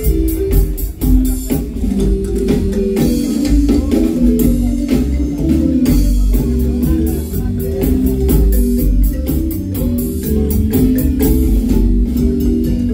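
Loud dance music with guitar, a heavy bass line and a steady drum beat.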